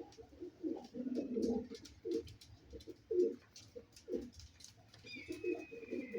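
Rampuri pigeons cooing: a run of short, low coos one after another, with a thin high steady whistling tone joining in near the end.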